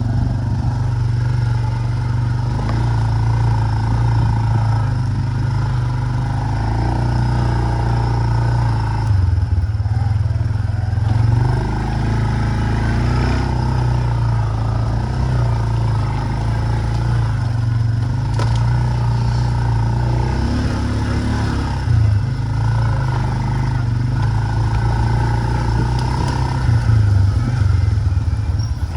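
Four-wheeler (ATV) engine running steadily under way at riding speed. Its pitch shifts up and down now and then as the throttle and speed change.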